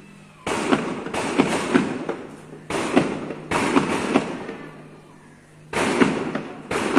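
Gunfire from a firing range at a distance: about six sharp reports, some in quick doubles, each followed by a rolling echo that dies away over about a second.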